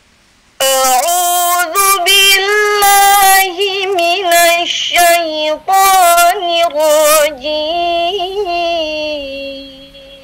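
A young woman's voice chanting Qur'an recitation in the melodic tartil style. The phrases are ornamented with quick wavering turns and short breaks between them. The chant ends on a long held note that fades away near the end.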